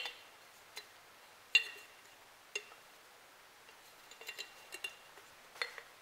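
Light clinks and taps of a glass jar of coffee grounds being handled: a few single knocks spread apart, then a quick little run of ticks about four seconds in.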